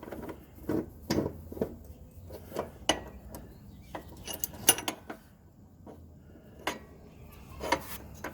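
Metal tools clinking and knocking irregularly as a steel jaw puller and bolt are handled and fitted onto a lawn mower's blade adapter, with the sharpest clanks about halfway through and near the end.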